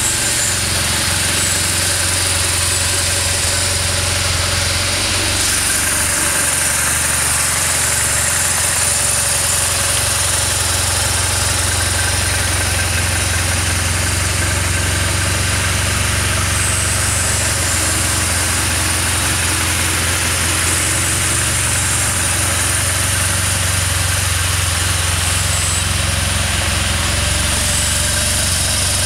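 BMW R1200GS boxer-twin engine idling steadily.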